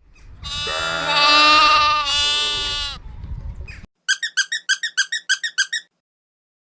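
Cartoon sound effects: a squeaky pitched sound about two and a half seconds long whose pitch bends down near the end, then after a short gap a rapid run of about ten short high chirps.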